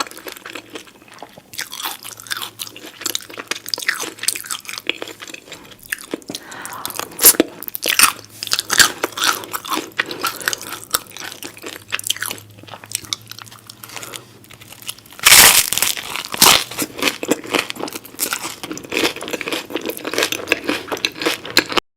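Crunchy food being bitten and chewed up close, a continuous run of crisp crackles with a loud crunch about two-thirds of the way through. It stops abruptly near the end.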